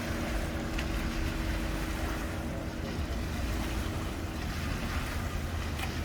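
Wind rumbling on the microphone over the steady hum of an idling engine; one strand of the hum fades about four and a half seconds in.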